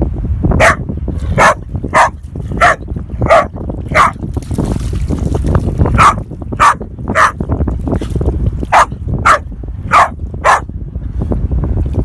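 A dog barking at a crab, about a dozen short barks in two runs with a pause around four to six seconds in.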